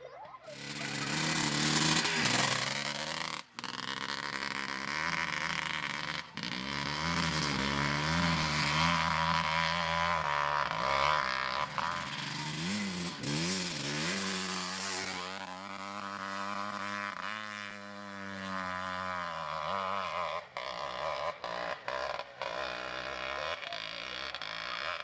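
Trial motorbike engine revving up and down again and again as the bike is ridden off-road, with a few sudden short breaks in the sound.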